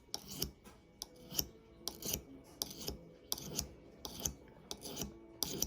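Steel knife blade scraped across the rough unglazed foot ring on the bottom of a ceramic mug, a run of short gritty strokes about two or three a second: sharpening a dull edge on the mug.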